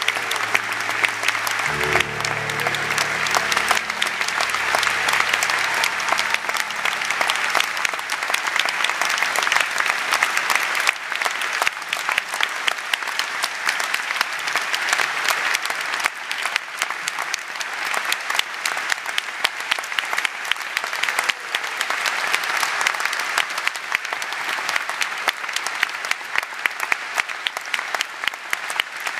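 Concert audience applauding, dense clapping throughout. The band's held final chord, with a low bass note, rings under the clapping and fades out over the first several seconds.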